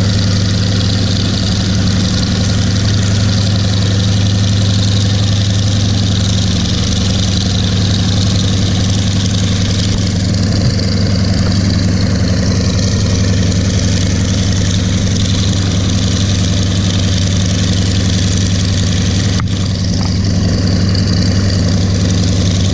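Piston engine of a light propeller aircraft running steadily at close range, a loud, even engine-and-propeller sound.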